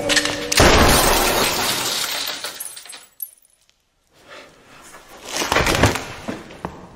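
A glass pane shattering loudly about half a second in, the crash and falling shards dying away over a couple of seconds. After a short silence a few sharper knocks and crunches follow.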